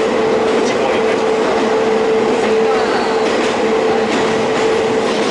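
Kobe Electric Railway 5000 series electric train running, heard from inside the passenger car: steady running noise with an even hum and the wheels clicking over rail joints now and then.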